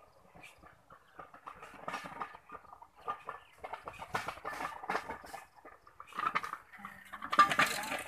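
Domestic chickens clucking in short, irregular bursts, with a louder, sharper burst of sound near the end.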